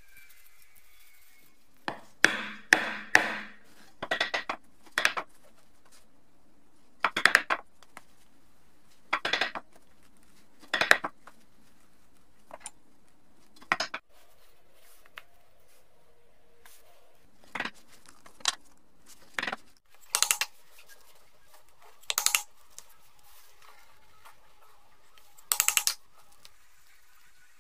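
A steel pricking iron being struck to punch stitching holes in leather. Short runs of sharp knocks, one to four at a time, come every second or two.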